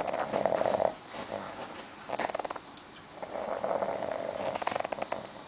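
Sleeping pug snoring: a raspy, fluttering snore on each breath, about every one to two seconds. This is the noisy breathing typical of the breed's short, flat-faced airway.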